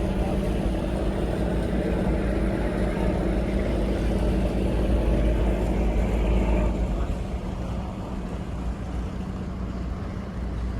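A ferry boat's engine running with a steady low drone, as the boat manoeuvres to come alongside the bank; about two-thirds of the way in the tone changes and it gets a little quieter.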